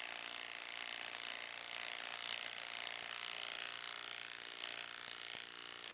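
Milwaukee M12 FUEL Stubby 1/2-inch impact wrench hammering steadily under load as it drives a 4-inch by 1/2-inch lag screw into solid wood without a pre-drilled hole. The sound cuts off abruptly near the end.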